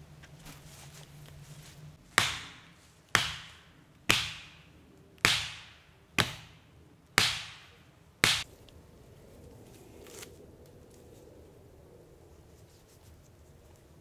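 A hand tool striking wood seven times, about once a second, each blow sharp with a short ringing decay.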